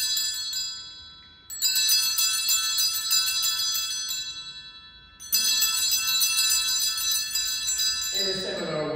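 Sacring bells (a cluster of small altar bells) rung at the elevation during the consecration. A ring is fading at the start, then the bells are shaken twice more, about a second and a half in and about five seconds in, each ring dying away over a few seconds. A man's voice starts near the end.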